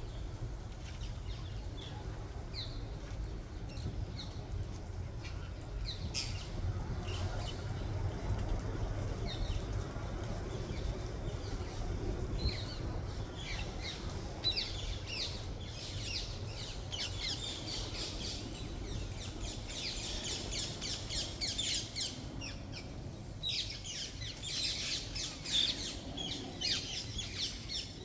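A flock of green parakeets calling: many short, high-pitched squawks, scattered at first and becoming a dense chorus from about halfway through. A steady low rumble runs underneath.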